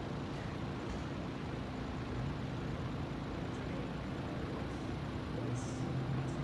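A motor vehicle engine idling with a steady low hum, and a few brief faint high chirps near the end.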